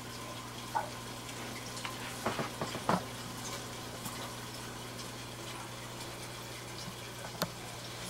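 Aquarium fish striking floating pellets at the water surface: a few sharp pops and splashes, a cluster about two to three seconds in and a single one near the end. Under it the tank's filter runs with a steady hum and a watery hiss.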